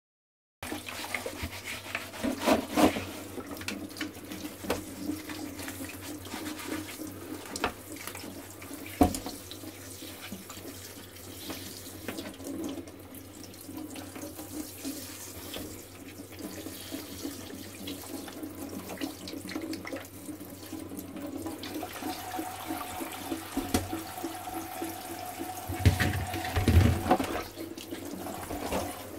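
Water running and splashing in a stainless-steel kitchen sink as whole brown crabs are scrubbed by hand in a bowl of water, with scattered knocks of crab shell against the bowl and sink. A few louder thumps come near the end.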